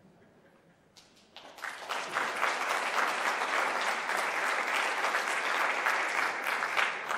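Audience applauding: starting about a second in, swelling quickly and holding steady.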